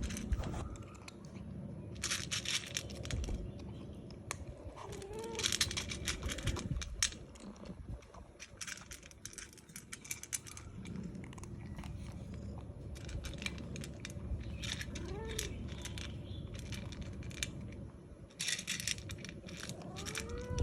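A domestic cat giving a few short meows, spread through the stretch, amid repeated bursts of crackling and crinkling that each last a second or two.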